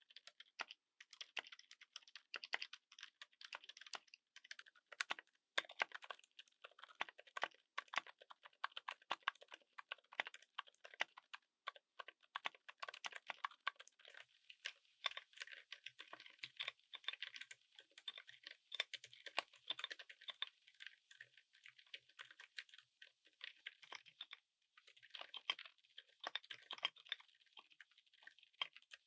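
Continuous fast typing on a mechanical keyboard fitted with silent switches: a quiet, dense patter of soft keystrokes.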